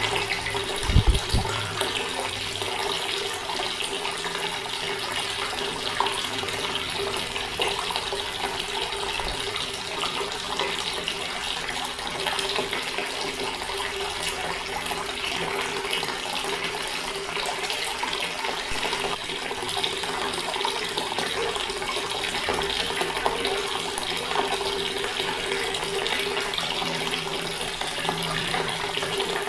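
Water running steadily from a tap, an even splashing rush. A brief low thump sounds about a second in.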